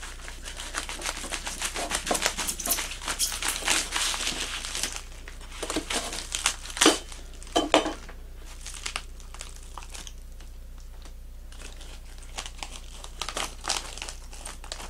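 Cardboard and plastic lure packaging being cut open with a knife and handled, crinkling and crackling. The crinkling is dense for about five seconds, with two sharp clicks about seven seconds in, then eases off and picks up again near the end as the lure is pulled from the package.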